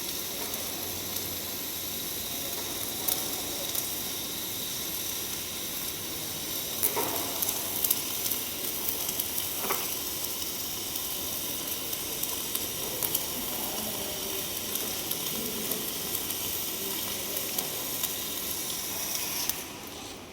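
MIG welding arc laying a bead on a pipe: a steady crackling hiss dotted with sharp pops, which stops shortly before the end.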